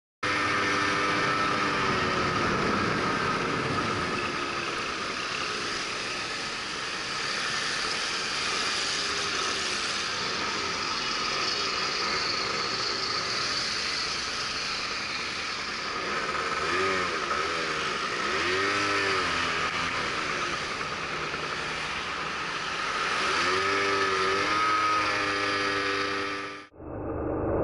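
Ride-along sound from a small motor scooter moving through city traffic: engine running with its pitch rising and falling as it speeds up and slows, over steady road and wind noise. The sound dips briefly near the end.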